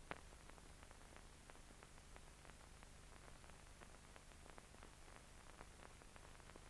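Near silence: the faint hiss, low hum and scattered small clicks and crackles of an old film soundtrack's surface noise, with one sharper click just after the start.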